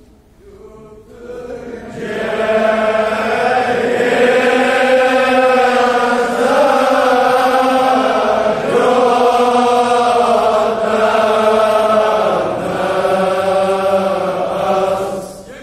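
Men's voices chanting a Kashmiri marsiya, a Shia mourning elegy, in long drawn-out sung lines. The chant begins about two seconds in and runs as a few long phrases with brief breaths between them.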